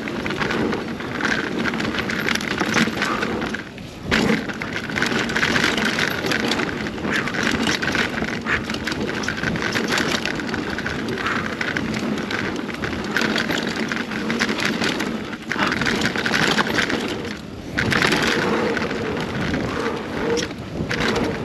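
2021 Scott Spark 970 full-suspension mountain bike riding fast down a dirt trail, picked up by the action camera: a steady rush of wind on the microphone and tyre noise, with rattling and clattering from the bike over rough ground. The noise drops away briefly twice.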